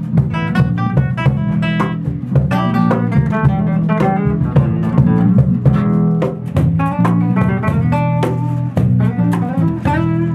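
Instrumental acoustic music: an acoustic guitar playing quick plucked notes over a bass guitar line, with a cajón struck by hand and brush.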